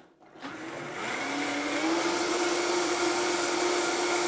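High-speed countertop blender motor starting up about half a second in, pitch climbing as it spins up, then running steadily while it blends young coconut flesh with water into coconut milk.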